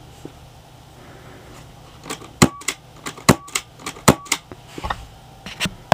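Marzen P99FS gas airsoft pistol fired three times through a homemade aluminium-pipe silencer, a little under a second apart. Each shot is a sharp pop with a brief ringing note, followed by a lighter click, and there are smaller mechanical clicks near the end.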